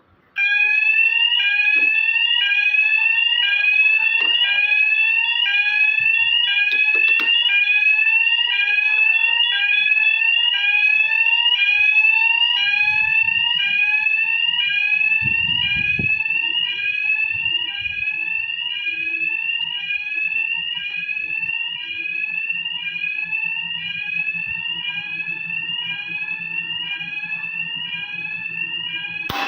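Fire alarm sounder going off during a system check. It starts suddenly about half a second in, then repeats a rising whooping sweep about once a second.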